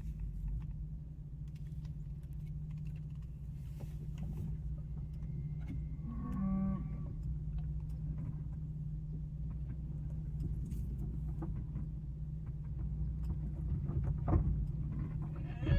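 Steady low hum of a car heard from inside the cabin, with a single short cow moo about six seconds in.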